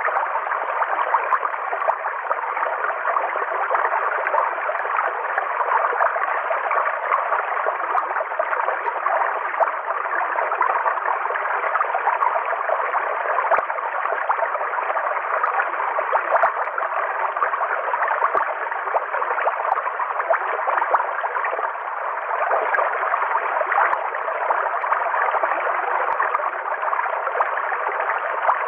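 River water flowing steadily: a continuous, even rushing with a gurgle in it, sitting in the middle range without deep rumble or high hiss.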